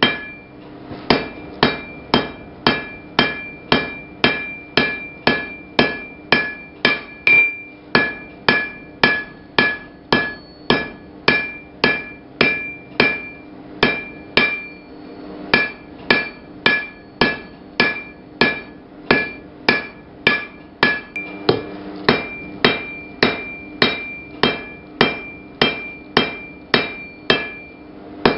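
Blacksmith's hammer striking hot iron on an anvil in a steady rhythm of about two and a half blows a second, each blow leaving a short metallic ring, with a few brief pauses between runs of blows.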